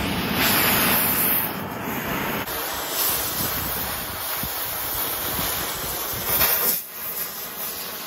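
Oxy-acetylene cutting torch running with a steady hissing flame while it cuts old steel hinges off a kennel door. Louder rushes of hiss come about half a second in and again shortly before the end.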